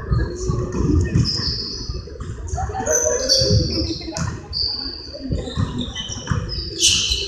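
Basketball sneakers squeaking in short, high chirps on a hardwood gym floor, over irregular low thumps of a bouncing basketball and feet.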